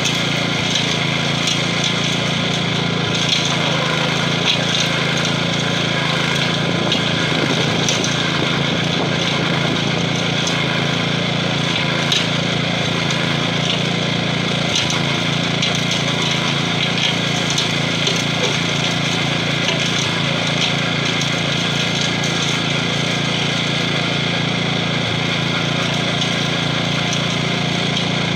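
Gravely 5640 walk-behind tractor's 12 hp Kohler single-cylinder engine running steadily under load, driving a stump-grinder wheel that chews into a tree stump, with a few brief louder knocks as the cutter teeth bite into the wood.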